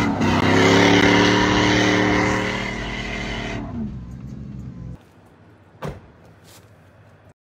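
Pickup truck engine held at high revs with a hiss of tyre and road noise, heard from inside the cab. About three seconds in the revs fall away and the sound dies down, leaving near quiet with a couple of faint clicks.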